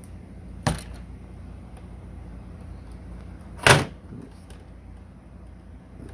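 Two sharp clacks of a small screwdriver and bit set being handled while a bigger bit is swapped in, the second louder, over a steady low electrical hum.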